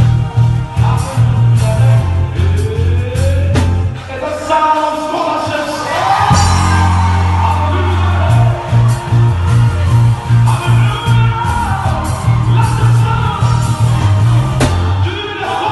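Live band playing: a loud electric bass guitar line that walks through low notes, holding one long low note a little past the middle, over a drum kit, with voices singing along.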